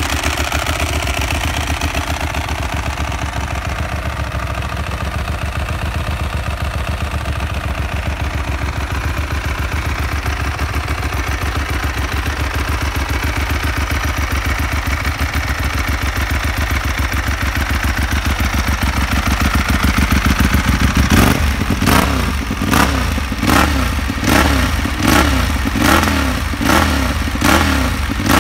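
Ducati 1198 SP's 1198 cc L-twin engine running through a Termignoni exhaust. It idles steadily for about twenty seconds, then gets about ten short throttle blips, a little under one a second.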